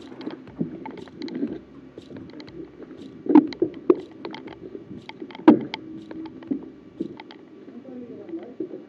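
A run of irregular clicks and knocks over a low rustle, with the loudest knocks about three and a half and five and a half seconds in.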